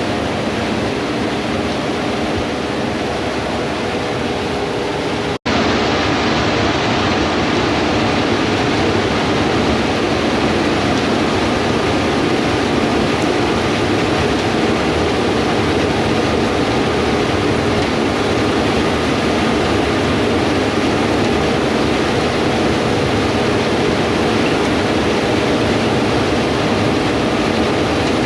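Gleaner S98 combine harvesters running while harvesting wheat: a steady machinery drone with a low engine hum under a loud rushing noise. It cuts out for an instant about five seconds in and comes back slightly louder.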